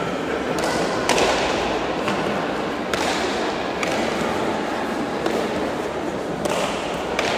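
Hard leather pelota ball struck with the bare hand in a main nue rally, smacking off the front wall and bouncing on the court floor: a series of sharp cracks, one every second or so. The cracks echo in the large hall over a steady room murmur.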